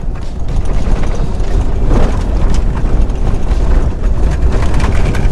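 Ford F-250 pickup driving over a rough unpaved road: a loud low rumble from the tyres with constant clattering and rattling of the truck.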